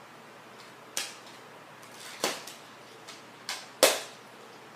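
Magna-Tiles magnetic plastic tiles clicking against each other as they are set onto a tower: several sharp separate clicks, the loudest near the end.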